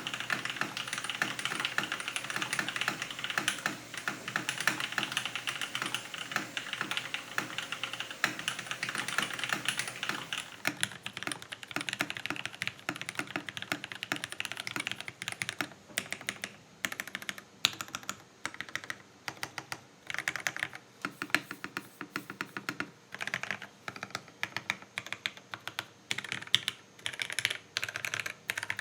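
Typing on a Geonworks Frog TKL mechanical keyboard with lubed Cherry MX Black linear switches, an aluminium plate and thick PBT keycaps. Fast, dense keystrokes for about the first ten seconds, then slower bursts of keystrokes with short pauses between them.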